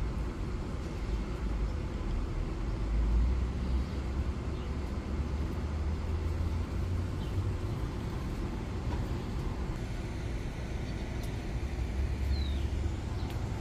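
Outdoor background noise: a steady low rumble that swells and fades, with a faint short chirp about twelve seconds in.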